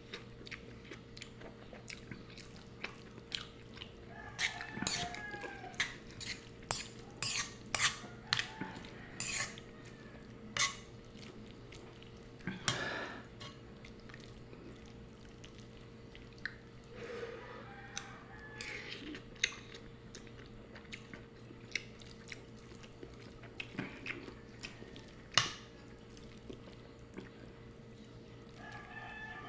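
Someone eating pancit noodles: chewing, with sharp clicks and clinks of cutlery against a plate or pan scattered throughout, thickest in the first half. A steady low hum runs underneath.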